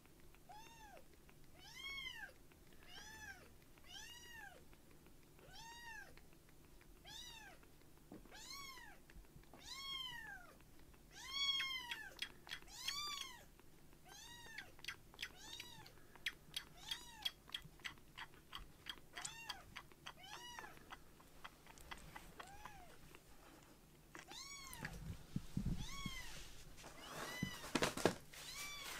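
Young kitten meowing over and over, thin high calls about one a second, each rising and then falling in pitch. A run of quick soft clicks comes in the middle, and rustling and handling noise comes near the end.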